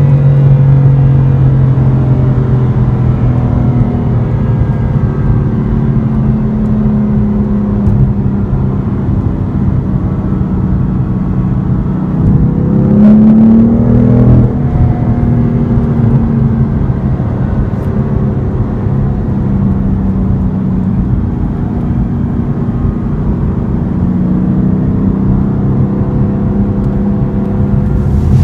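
A BMW M4's 3.0-litre twin-turbo inline six runs under way over steady road rumble. Its note sags at first, rises briefly about 13 seconds in and falls again, then holds steady.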